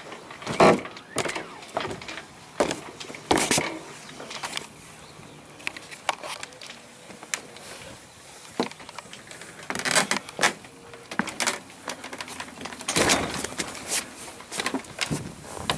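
Irregular clicks, knocks and rustling bursts of deck gear, rope and sail canvas being handled on a small sailboat, loudest about a second in, around three seconds in and again near the end.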